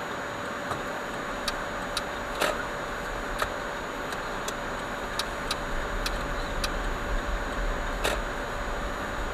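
Car cabin heard through a dashcam: a low engine and road rumble starts about a second and a half in and grows as the car pulls away and turns. A steady faint electronic whine and a dozen light clicks at irregular intervals run over it.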